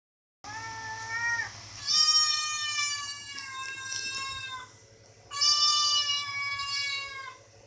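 Three drawn-out animal calls at a steady pitch, each sagging slightly as it ends: a short one, then two of about two to three seconds each. A faint low hum runs underneath.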